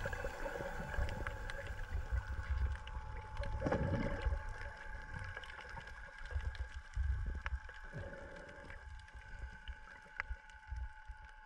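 Underwater sound picked up by a camera in its housing: water surging and crackling over a steady droning hum, fading away toward the end.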